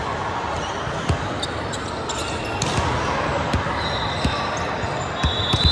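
Large-gym ambience on a hardwood court: a steady hum of chatter, with scattered thuds of volleyballs bouncing on the floor. Short sneaker squeaks come near the end.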